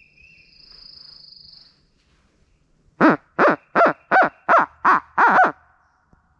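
Owl hooting: a loud series of seven quick hoots, each dropping in pitch, starting about three seconds in, with the last hoot drawn out longer.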